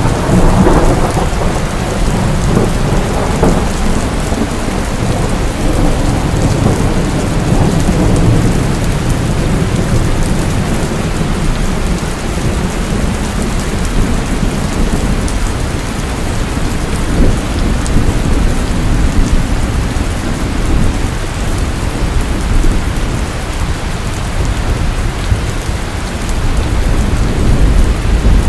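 Steady heavy rain pouring down, with a low thunder rumble underneath that swells and fades a few times.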